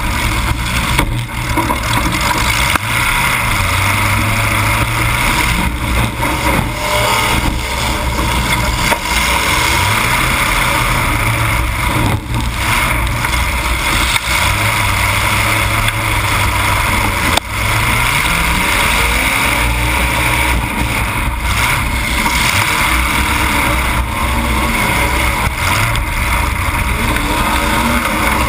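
Demolition derby car's engine running hard through open exhaust stacks that come straight up through the hood, revving up and down as the car maneuvers. A few sharp knocks cut through it.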